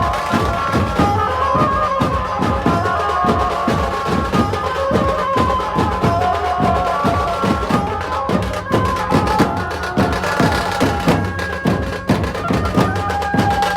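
Loud festival procession music played over a sound system: a sustained melody over a steady, fast drum beat.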